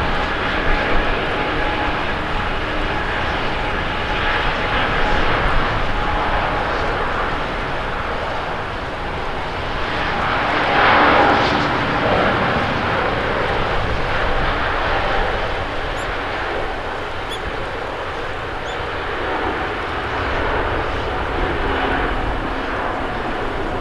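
Airbus A350-900's Rolls-Royce Trent XWB turbofans at takeoff thrust: a steady jet rumble and hiss with a thin whine in the first seconds, loudest as the airliner rolls past about eleven seconds in.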